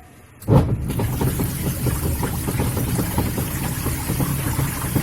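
Semi-automatic washing machine's wash motor switching on about half a second in and running with a steady hum and a dense, irregular rattling and knocking. The owner blames this noise on a faulty wash gearbox.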